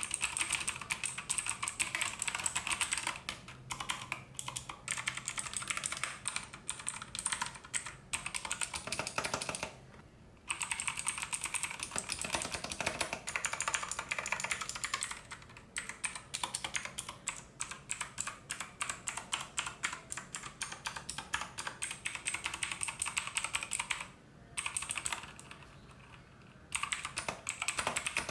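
Fast typing on a Machenike K7 mechanical keyboard: a dense clatter of key clicks in runs, broken by a few short pauses.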